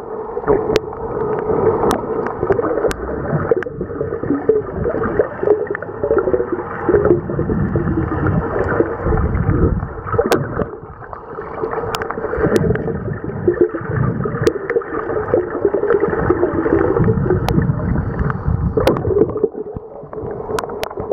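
Muffled underwater water noise picked up by a submerged camera: an uneven churning and gurgling with little above the low and middle range, and about a dozen scattered sharp clicks.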